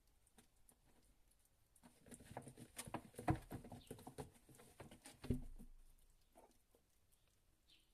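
Kittens moving about: a run of quick pattering and scratching of small paws and claws, with two louder thumps about three and five seconds in.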